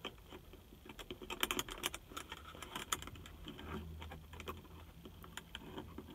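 Faint, irregular small plastic clicks and taps from fingers working the parts of a car's interior light in the headliner. The clicks come thickest about a second in.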